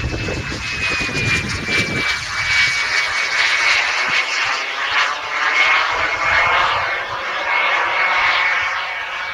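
Wren 54 model jet turbine in flight: a high steady whine that dips slightly in pitch early on, over a rushing jet noise that swells and fades as the model flies around. A low rumble stops abruptly about two seconds in.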